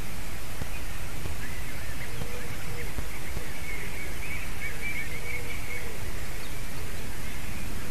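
Steady hiss on the nest microphone with faint, thin, wavering high calls through much of it: a white-tailed eagle whining from above the nest.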